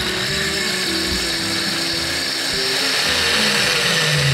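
Countertop blender running steadily at speed, puréeing soaked dates with their soaking water into a paste. Background music plays underneath.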